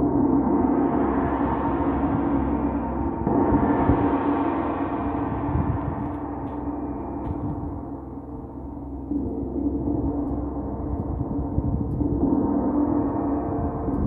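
Large hanging gong played with a mallet: a low, sustained ring that never dies away and swells again with each new stroke, several times over.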